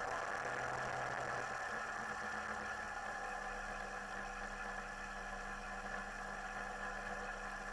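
Rotax 582 two-stroke engine of a Chinook Plus 2 ultralight running steadily at low power with a fixed pitch, just before the takeoff run.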